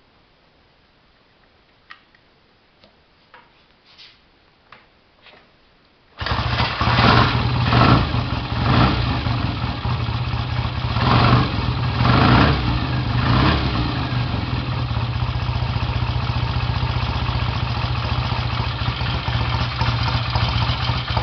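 A few faint clicks, then a freshly rebuilt 1968 BSA A50 Royal Star's 500cc parallel-twin engine fires up about six seconds in. It is blipped several times and settles into a steady idle.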